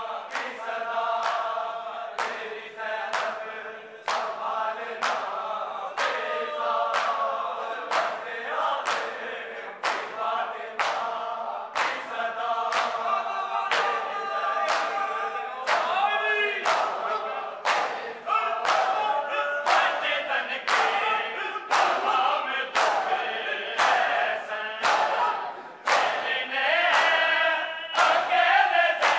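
Men's voices chanting a noha (Shia lament) together in unison. Under them the crowd's matam, bare-hand chest-beating in unison, lands in sharp claps at a steady pace of about one a second.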